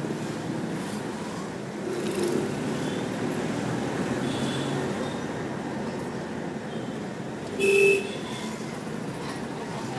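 Steady car road noise while driving through busy street traffic full of motorbikes, with a few faint horn beeps and one short, loud horn blast just before eight seconds in.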